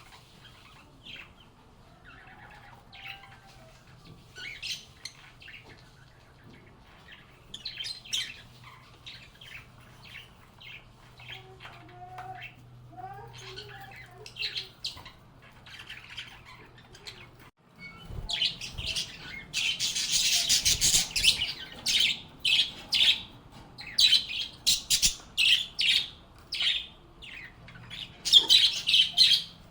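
Lovebirds chirping and squawking: scattered short calls at first over a faint low hum, then a little past halfway a sudden change to loud, rapid, dense shrill chattering.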